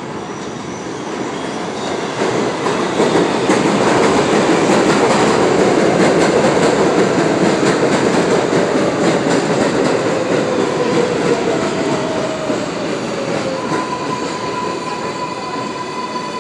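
R188 subway train pulling into the station. The rumble and clatter of its wheels on the rails builds as the cars pass close by, then eases. A whine falls in pitch as the train slows, and a steady high tone comes in near the end.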